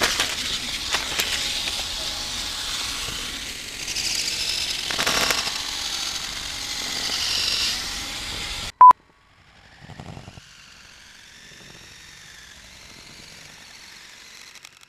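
LEGO Technic remote-controlled trophy truck's electric motors and plastic gearing whirring as it drives and tumbles over concrete, with a knock near the start and another about five seconds in. Just before the nine-second mark a short, loud beep, after which the running is much quieter and steadier.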